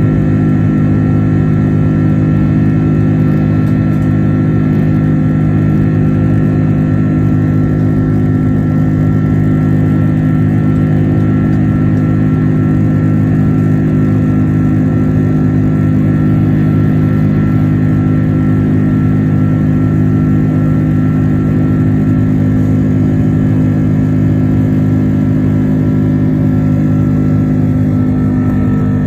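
Steady engine drone of an airliner in flight, heard from inside the cabin: a loud, even sound with several held tones that does not change.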